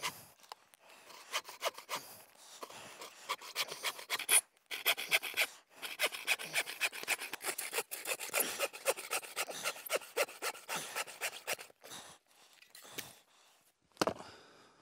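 Bow saw cutting through a log in quick, even back-and-forth strokes, with two short breaks. The sawing stops about twelve seconds in, and a single knock follows near the end.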